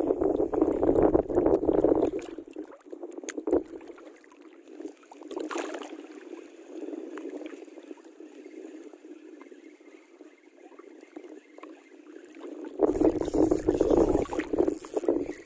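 Wind rumbling on the microphone in two gusts, at the start and again from near the end, over a steady wash of wind and water noise.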